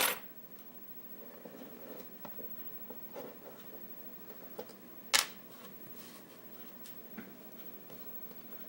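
Light clicks and taps of a small lock cylinder and pinning tray being handled on a bench, with one sharp click about five seconds in.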